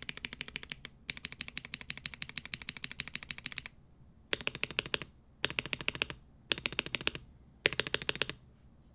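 Mechanical keyboard with lubed Drop Holy Panda tactile switches (Womier/Gamakay K87 TKL) being typed on fast: a steady run of rapid keystrokes for about three and a half seconds, then four short bursts of keystrokes with brief pauses between them, stopping just before the end.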